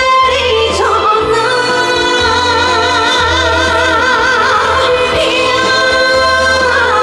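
Live pop ballad with band accompaniment: a woman sings a long held high note with a wide vibrato, over a steady pulsing bass.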